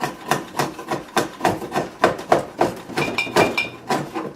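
A wood chisel being struck again and again, cutting a groove in a treated 2x4, about three to four blows a second, with a brief metallic ring about three seconds in.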